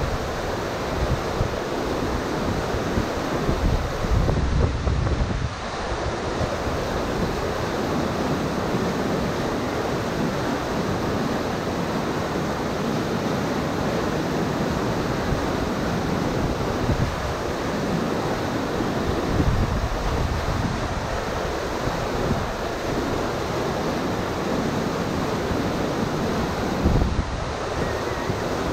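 Whitewater rapid on a river, a steady rushing roar of water pouring over a rocky drop. Wind buffets the microphone in a few low gusts along the way.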